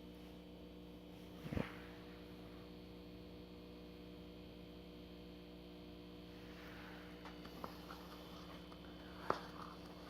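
Steady low electrical hum, with a few small clicks and knocks from handling the screwdriver bits and their case: a soft knock about one and a half seconds in and a sharp click near the end.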